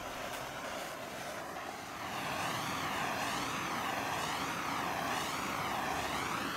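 Plumber's torch flame running with a steady rushing hiss as it chars a cedar board's surface for shou sugi ban. The hiss grows louder about two seconds in, and its tone then wavers up and down.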